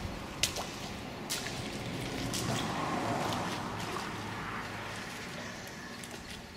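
A few sharp knocks and scuffs as two people sit down on plastic milk crates on a gritty concrete floor, over a steady low background hum.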